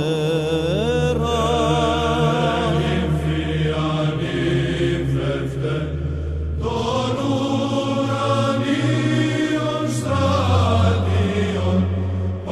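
Byzantine chant: a voice sings long, ornamented lines without pause over a held low drone (the ison). The drone moves to a new note twice.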